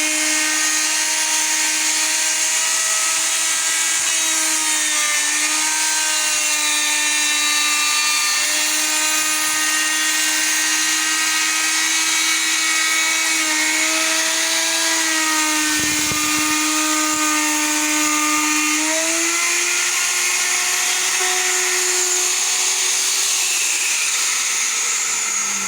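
Large electric wood router running at high speed, a steady whine whose pitch sags slightly as the bit loads up cutting into the wooden door edge, then rises a little about 19 seconds in as the load eases.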